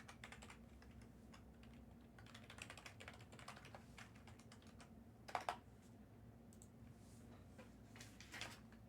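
Faint typing on a computer keyboard, a scatter of light key clicks with a louder pair of clicks about five seconds in.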